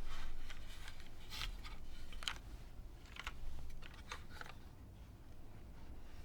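Typing on a top-mount Tora TKL keyboard with broken-in, lubed Cherry MX Brown switches, a polycarbonate plate and GMK keycaps: uneven runs of keystrokes that stop about four and a half seconds in.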